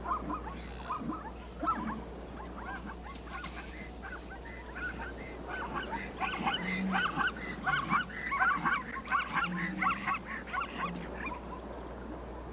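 A herd of zebras giving short, barking alarm calls, many voices overlapping. The calling swells, becoming louder and denser about halfway through, then thins out near the end.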